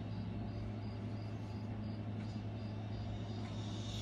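A short high-pitched chirp repeating about three times a second, cricket-like, over a steady low hum.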